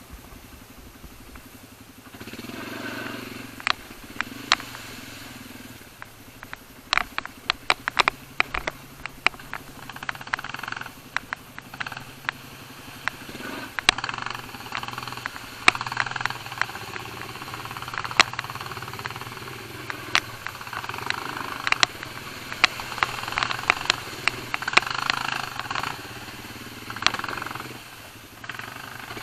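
Quad bike (ATV) engine running over a rough, muddy trail, its note swelling and falling with the throttle, with many sharp knocks and rattles from the jolting ride.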